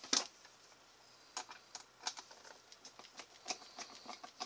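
Hard plastic parts clicking and tapping as a plastic arm is handled and pressed onto a baby swing's plastic gearbox housing: one sharper click just after the start, then a run of small, irregular clicks.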